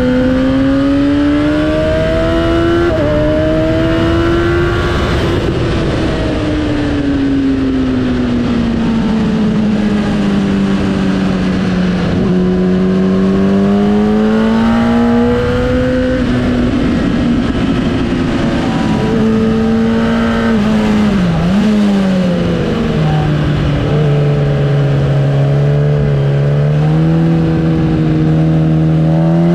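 Sportbike engine at track pace, revving up and down: the pitch rises under acceleration, drops suddenly at an upshift about three seconds in, and falls and rises again as the bike slows for and drives out of corners, over steady wind rush.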